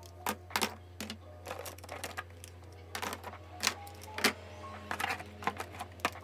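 Plastic highlighters clicking and clattering as they are handled, knocked together and set into a clear acrylic organizer: many sharp, irregular clicks. Soft background music plays underneath.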